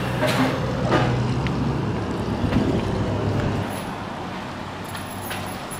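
A steady low mechanical hum with a few knocks in the first second; the hum drops in level a little under four seconds in.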